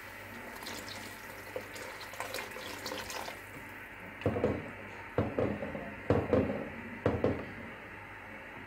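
Cornflour-and-water slurry poured into a pot of hot soup, a splashy trickle for about three seconds, then a spatula stirring it through the liquid, sloshing four times about a second apart.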